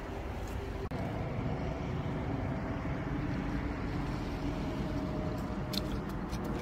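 Steady low rumble with a faint hum, of the kind made by distant engines. A few light clicks come near the end.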